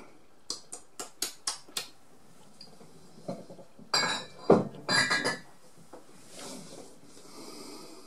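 Glass bottle and tumbler being handled: a quick run of about five sharp clicks in the first two seconds, then a louder cluster of glass clinks and knocks with a ringing tone about four to five seconds in, followed by a soft hiss near the end.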